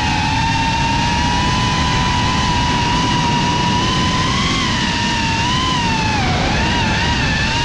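FPV quadcopter's electric motors and propellers whining at a steady pitch over a rough rush of air, the pitch dipping briefly and wavering about six seconds in before settling again.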